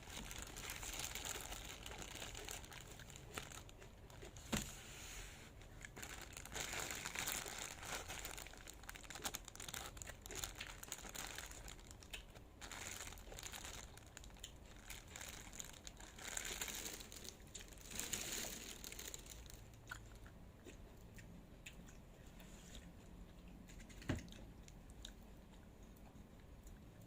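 Crinkling and rustling in spells, as of something crinkly being handled, with a couple of sharp clicks; it grows quieter in the last few seconds.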